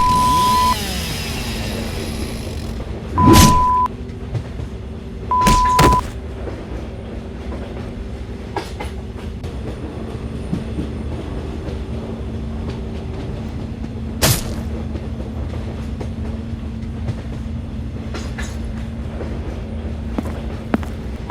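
A steady mechanical rumble with a low, even hum, broken by short high beeps at one pitch, each joined to a sharp bang, about three and five and a half seconds in, and by another sharp bang about fourteen seconds in.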